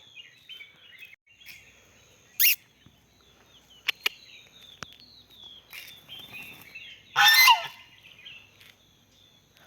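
Morning birdsong: many small birds chirping, with a loud short call about two and a half seconds in and a louder, longer call about seven seconds in.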